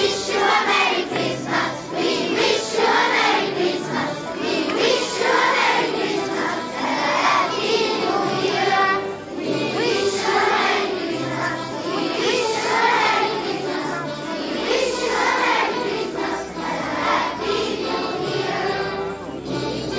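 A large group of children singing a Christmas song together in chorus.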